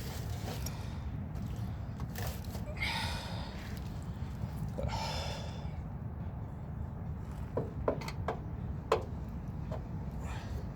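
Two long, breathy exhales, then a series of sharp light clicks and taps from hands and tools working on the microwave's metal casing, over a steady low hum.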